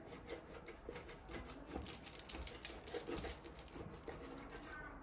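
Kitchen knife cutting through the crisp, sesame-topped crust of a layered baked çörek: a faint crackling crunch of many small irregular crackles.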